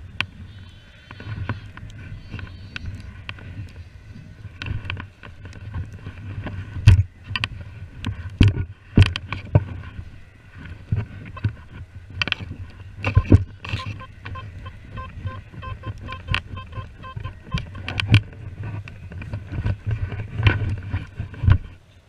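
Irregular knocks and bumps from walking and handling the metal detector and camera, over a low wind rumble, with faint high steady tones in places.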